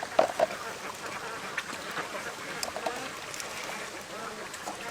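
A flock of domestic ducks quacking in a dense, overlapping chorus, with two louder quacks just after the start.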